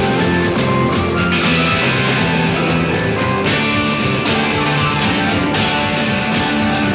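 Blues-rock band playing live: electric guitar over bass and drums in an instrumental passage with no singing.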